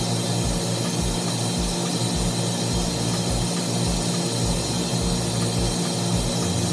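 Basement mechanical-room machinery running steadily: a constant hum and hiss with a low throb pulsing about twice a second.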